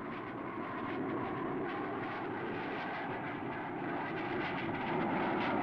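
Steady jet engine noise of a jet aircraft in flight, an even rushing sound that swells a little near the end.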